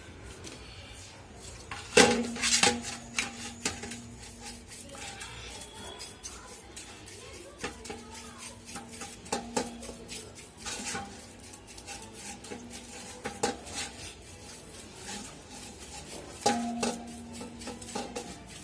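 Metal parts and hand tools clinking and knocking together during an air compressor overhaul. There are irregular sharp knocks, with short ringing after the louder ones, which come about two seconds in, around the middle, and again near the end.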